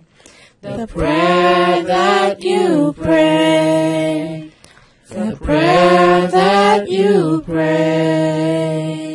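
Unaccompanied singing of a slow prayer song: long held notes that slide between pitches, sung in phrases with short breaks between them, the last note fading out at the end.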